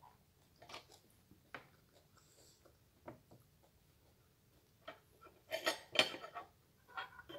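Cutlery clinking and scraping against a plate while eating: a few scattered light clicks, then a louder burst of clatter about two-thirds of the way in.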